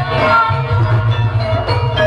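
Javanese gamelan ensemble playing: bronze metallophones ringing in held tones over a steady low drum and gong rumble.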